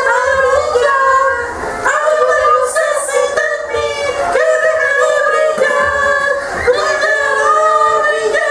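High voices singing a song in held notes, with little or no accompaniment underneath.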